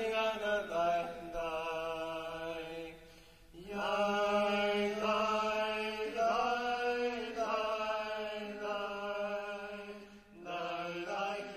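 Background music: a chanting voice holding long, gliding notes over a steady drone, in long phrases with a new one starting about three and a half seconds in and again near the end.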